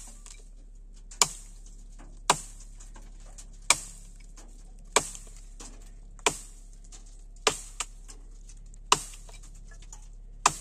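A series of about ten sharp knocks, roughly one every second and a bit, over a faint low steady hum.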